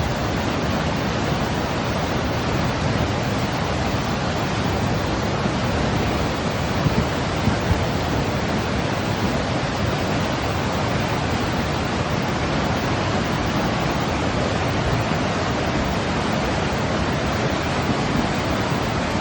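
Steady, unchanging white-noise hiss, an even rush of sound with no pitch or rhythm, played as a soothing sleep sound for babies.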